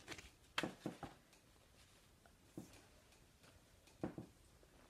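A few soft knocks and rustles from a pattern pamphlet and a stitched linen piece being handled. Three come close together in the first second, then single ones at about two and a half and four seconds in.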